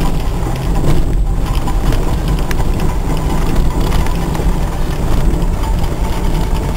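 Mazda Bongo camper van on the move, heard from inside the cab: a steady engine note with tyre and road noise as it rolls slowly over gravel.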